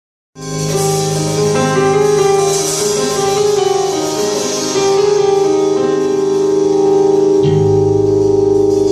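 Keyboard music playing held chords, with the bass note changing near the end.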